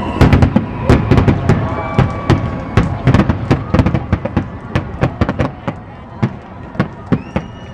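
Aerial fireworks shells bursting in a rapid volley of sharp bangs over a low rumble, packed close together at first and thinning out after about five seconds.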